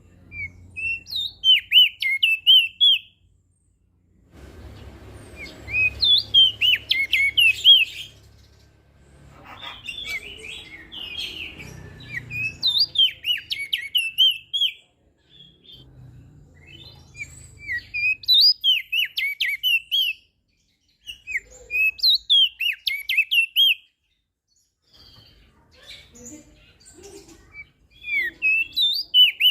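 Opior jambul (crested dark-eye) singing in repeated bursts of quick, high warbling notes. Each phrase lasts two to three seconds, with short pauses between phrases, about seven phrases in all. A faint low hum sits under some of the phrases.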